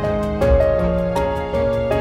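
Soft background piano music, its notes changing about every half second.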